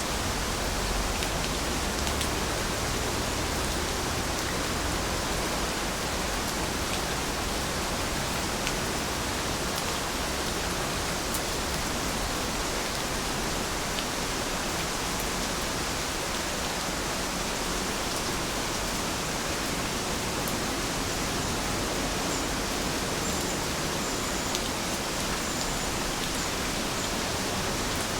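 Steady rain falling, an even continuous hiss with a few faint drop ticks.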